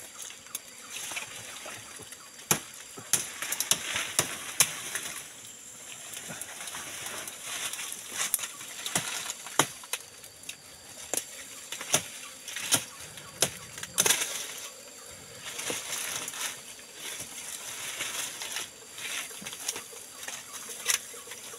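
Rustling and snapping of leaves and twigs in forest undergrowth: irregular sharp clicks and cracks over a steady high hiss.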